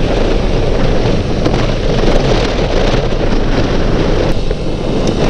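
Heavy wind noise buffeting the action camera's microphone as a Yamaha FZ motorcycle speeds up along a road, with engine and road noise underneath.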